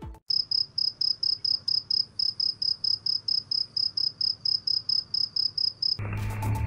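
Cricket chirping: a steady train of short, high chirps, about five a second, starting abruptly after a moment of silence. Music comes back in near the end.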